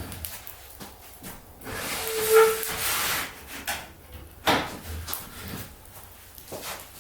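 Wood fire in a fire stand hissing loudly for about a second and a half, with a brief whistling note in the middle, then a few sharp cracks.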